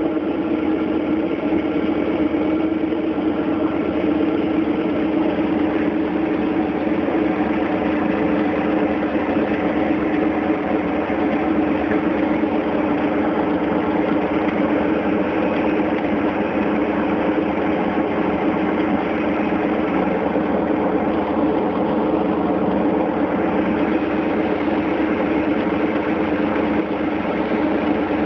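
Nanchang CJ-6 trainer's nine-cylinder radial engine running steadily at low power, heard from inside the cockpit.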